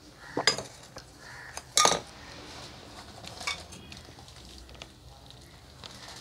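Dishes clinking: a small glass cup set down against the tableware, two sharp clinks with a short ring about a second apart, then a lighter clink near the middle.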